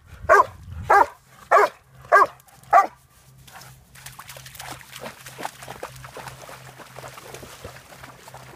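A dog barks five times, about every half second, eager for a stick held up ready to throw. From about four seconds in, dogs splash and wade through shallow lake water.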